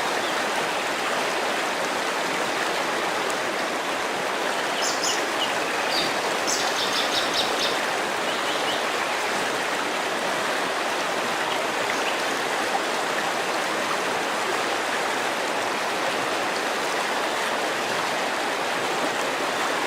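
River water flowing in a steady, even rush. A bird chirps briefly about five seconds in, with a quick run of chirps around seven seconds.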